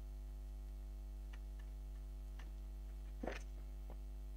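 Steady electrical mains hum with a few faint, scattered clicks; the loudest click comes a little past three seconds in.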